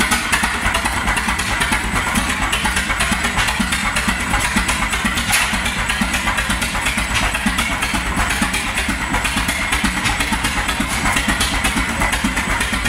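Old vertical multi-cylinder stationary engine with a large flywheel running steadily, its exhaust beating fast and even with no misses.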